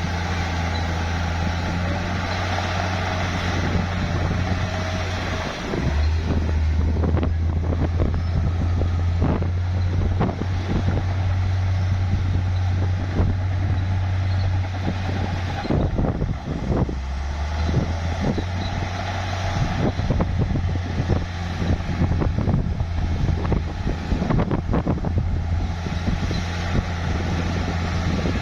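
Bulldozer's diesel engine running under load with its tracks clanking and knocking as it pushes dirt and mud. The engine note changes about six seconds in and again around sixteen seconds.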